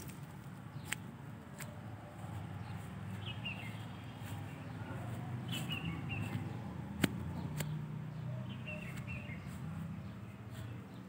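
A songbird's short chirping phrase, repeated every two to three seconds, over a steady low outdoor rumble, with a few sharp clicks, the loudest a little past the middle.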